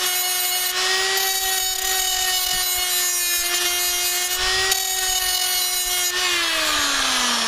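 Small 3-inch Harbor Freight cut-off grinder running at a steady high whine, with two brief bursts of grinding noise, about a second in and about four and a half seconds in, as the wheel touches the rivet head on the swing-set pipe. Near the end the whine falls steadily as the tool winds down.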